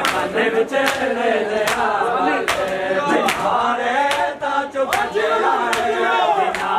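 Men chanting a noha (Shia mourning lament) in chorus, kept in time by the crowd's matam: open-handed slaps on bare chests in unison, about one a second.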